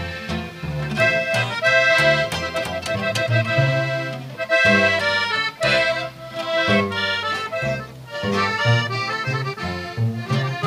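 Norteño trio playing an instrumental passage with no singing: a button accordion carries the melody over strummed twelve-string guitar and a plucked upright bass line.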